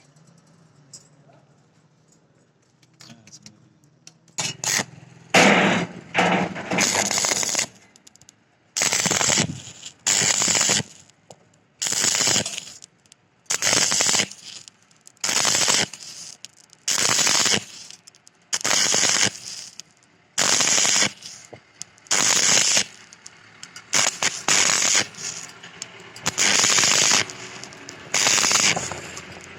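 Stick-welding arc from a 6013 electrode crackling in short, regular bursts about once a second, starting about five seconds in: the arc is struck and broken again and again, the on-off stitching used to bridge a wide gap without burning through.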